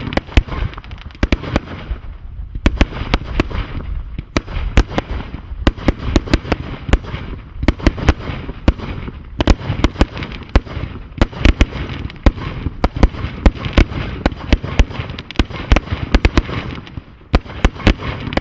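A 100-shot air-bomb-style firework cake firing: a continuous barrage of sharp, loud bangs, several a second, over a steady hiss. The barrage thins out briefly near the end.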